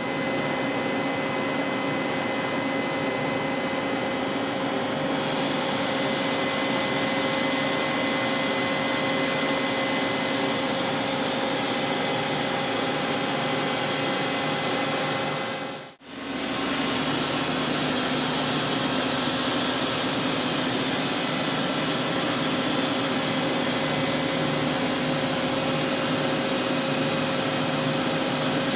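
Doosan V550 CNC vertical turning lathe running under power: a steady mechanical hum and whir with several fixed tones. It drops out for a moment about halfway through, then carries on.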